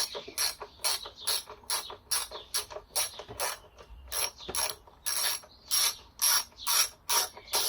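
Socket ratchet wrench clicking as it is worked back and forth to undo a bolt on a motorcycle's front end, a steady run of sharp clicks about two to three a second.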